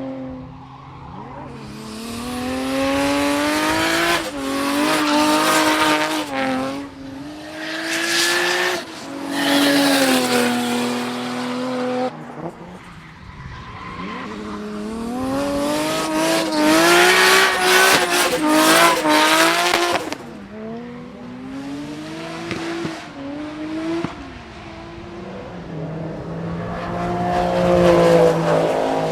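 Performance car engines accelerating hard on a race circuit, pitch climbing and dropping back at each upshift, in three loud passes as cars go by.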